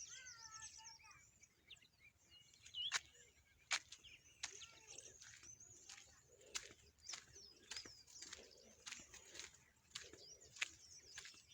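Several birds chirping and twittering in the morning, faint. Sharp clicks come about once a second from about three seconds in.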